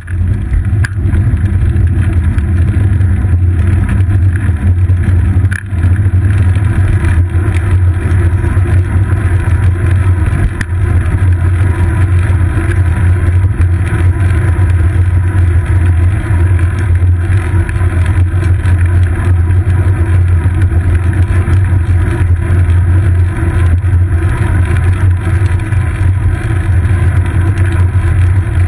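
Steady, loud low rumble of road vibration and wind picked up by a GoPro Hero 2 mounted on a bicycle's seat post while riding, with a few faint knocks from bumps.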